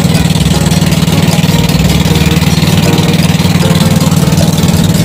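Engine of a wooden covered passenger boat running steadily while under way: a loud, even drone with a fast, regular pulsing beat.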